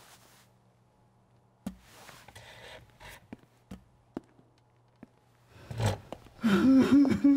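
A low hum cuts off with a click, then faint clicks and paper rustles at a table. Near the end a man breaks into a loud, wavering sob that rises and falls in pitch.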